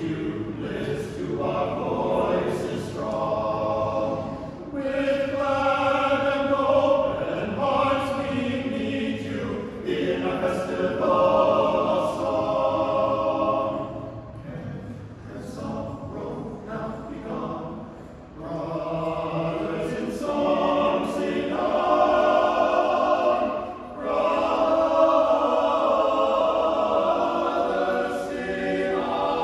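Men's choir singing a cappella in parts, several voices in harmony, in phrases a few seconds long that swell and fall back, with brief dips between phrases.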